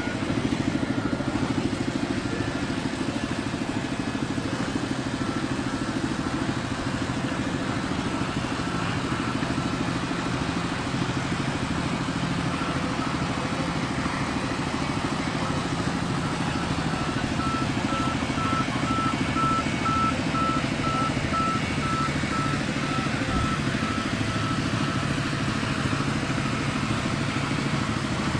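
A machine's motor running steadily, with a low hum and a faint high tone that comes and goes in short repeated pulses.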